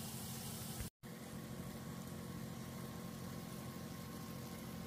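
Steady mechanical hum of a running kitchen appliance. It cuts out completely for a split second about a second in, then carries on.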